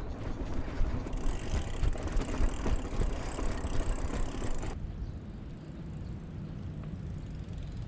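Mountain bike riding over a dirt singletrack: tyres rolling and the bike rattling over bumps, with the freewheel ticking. About five seconds in it cuts to a quieter low rumble.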